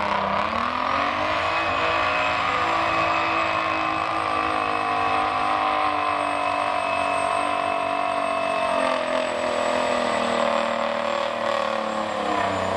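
Diesel engine of a pro stock semi truck running hard under full load while it pulls a weight-transfer sled. The engine pitch climbs in the first second and then holds steady, easing down slightly about nine seconds in, with a thin high whine over it.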